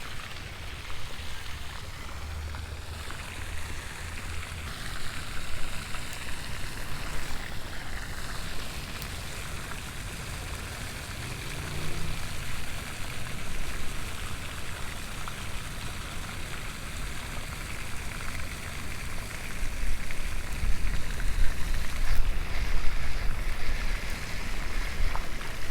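Wind blowing across the microphone: a steady rushing noise with low rumbling gusts that grow stronger near the end.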